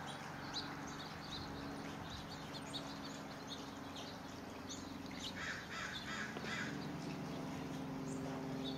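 Birds calling: short high chirps scattered throughout, and about halfway through a quick run of four harsher, lower calls. A steady low hum runs underneath.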